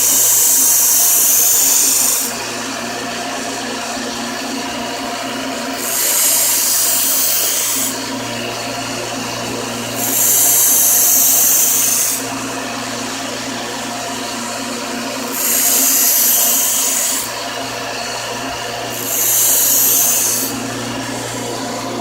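A power tool's motor running steadily while a knife blade is pressed to its abrasive in five passes of about two seconds each, every pass a loud, high grinding hiss. The passes are grinding the serrations off a serrated knife edge.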